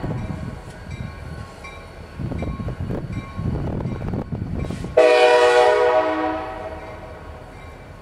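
Diesel freight locomotive rumbling past, then a long blast of its multi-chime air horn about five seconds in that fades away over a couple of seconds.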